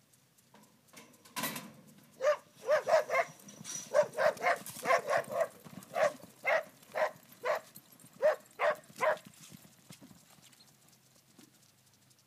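A dog barking repeatedly in short, sharp barks, about two a second, for some seven seconds. Just before the barking, a single loud metal clang of a roping chute gate springing open.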